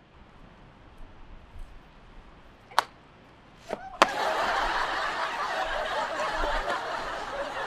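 Audience laughter from a sitcom laugh track, cutting in suddenly about four seconds in and carrying on, after near quiet with a couple of brief knocks.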